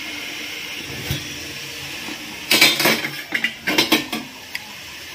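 Stainless steel idli steamer lid lifted off with a cloth: several metal clanks and scrapes starting about two and a half seconds in, over a steady hiss. The pot is being opened after steaming to check whether the leaf-wrapped rice cakes are cooked.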